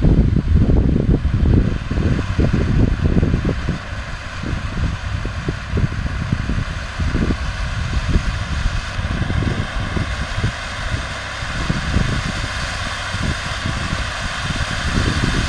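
Ground fountain firework hissing steadily as it sprays sparks, under loud gusty wind buffeting on the microphone.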